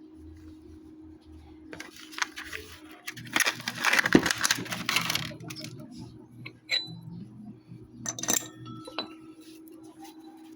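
Small metal parts clinking and rattling while a scooter's CVT is worked on: a dense flurry of clatter about three seconds in, then a few single sharp clicks.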